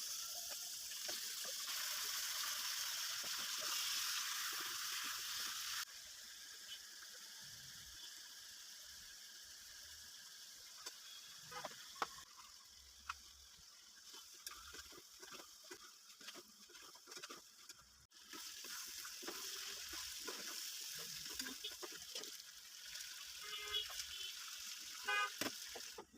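Food sizzling in a hot pan, louder in the first few seconds and again later, with scattered clicks and scrapes of a cooking utensil stirring.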